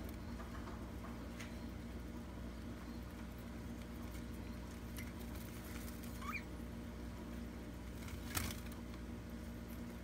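Budgerigars pecking and shuffling on a loose seed-and-grit floor, with soft scattered pattering and ticks. A single short rising chirp about six seconds in, and a sharp click, the loudest sound, about eight seconds in.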